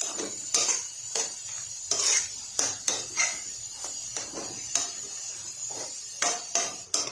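A cooking utensil scraping and knocking against a pan while stirring chicken in a squid-ink sauce, in repeated strokes roughly every half to three-quarters of a second.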